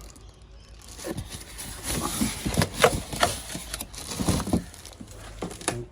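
Knocks, taps and scrapes of hands handling a new air compressor's parts and packaging, in irregular short strokes over a low hum.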